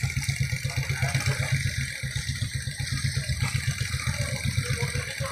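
An engine idling steadily, with a low, even, fast pulse.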